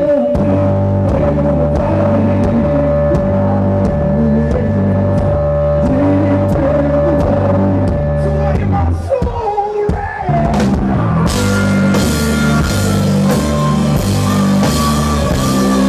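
Live blues-rock band playing: electric guitars, bass and a drum kit. About nine seconds in the band drops away briefly to a sliding guitar note, then comes back in with crashing cymbals.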